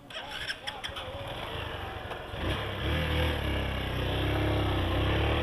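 Honda motorcycle engine pulling away, its note getting louder and rising in pitch about halfway through, after a few light clicks and rattles at the start.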